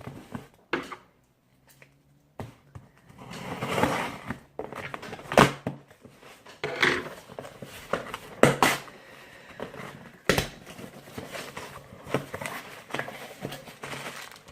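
A mail-order package being handled and opened by hand: irregular rustling and scraping of packaging with several sharp knocks, after a brief pause near the start.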